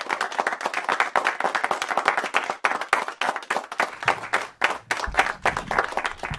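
Audience applauding, many hands clapping, stopping abruptly near the end.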